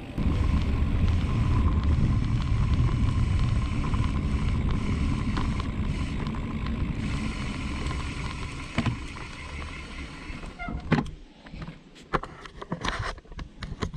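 Wind rumbling over the microphone of a bicycle-mounted camera while riding. It dies down after about ten seconds, leaving several sharp clicks and knocks near the end.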